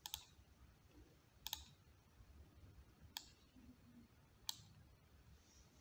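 Computer mouse clicking four times at intervals of about a second and a half, the second time a quick double click, over near silence.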